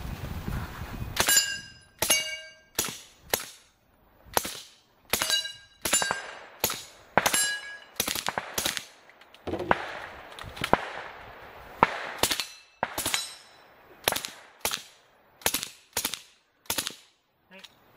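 Suppressed M11/9 submachine gun with a slow-fire conversion and a Bowers CAC-45 suppressor, firing short fully automatic bursts in quick succession, roughly two bursts a second. Many bursts are followed by the clear metallic ring of struck steel targets.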